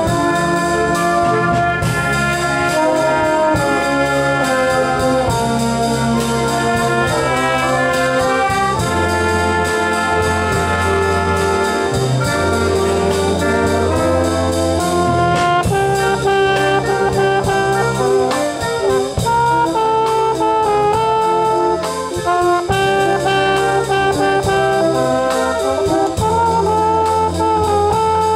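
A concert band of brass and woodwinds playing a tune: tuba bass notes under saxophones, trumpets and clarinets, carrying on without a break.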